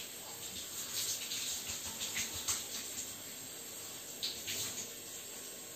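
Handheld shower head spraying water over a wet boxer dog and onto the tiled shower floor: a steady hiss of running water, with a few brief louder splashes.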